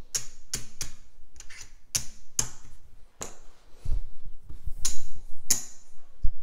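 Casino chips clicking against each other and on the felt as they are picked up and restacked from place bets: a dozen or so sharp, irregular clicks, some with a short bright ring.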